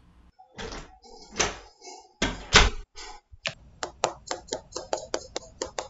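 A door opening, with a sharp thud about two and a half seconds in, then a quick, even run of sharp taps: high-heeled footsteps on a wooden floor.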